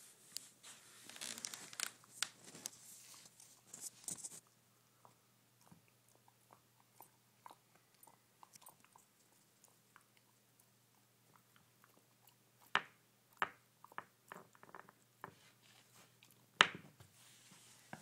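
Golden retriever puppy chewing a Greenies dental chew: a dense run of crunching in the first four seconds, then scattered small clicks and a few sharp, loud cracks later on.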